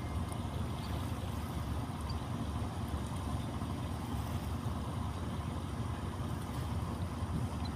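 Engine of a small wooden cantrang fishing boat running steadily as it approaches, a low continuous rumble with a fast even beat.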